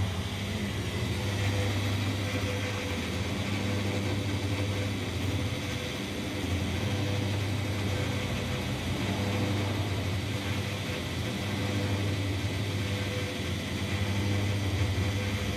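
Old fuel dispenser's electric pump motor running with a steady low hum while it pumps 95-octane benzine into a car's tank.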